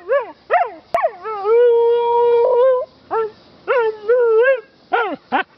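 A dog singing: a string of howling calls that swoop up and down in pitch, with one long held note near the middle and a few short sharp yelps near the end.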